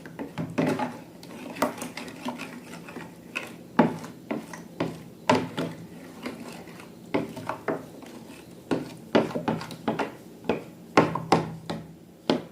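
Irregular clicks and clacks of slime being mixed and handled in a bowl, several a second, with a utensil knocking against the container now and then.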